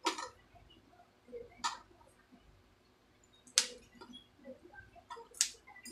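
Four short, sharp ticks, as green chillies and coriander sprigs are dropped into a small steel container, a second or two apart; the last two are the loudest.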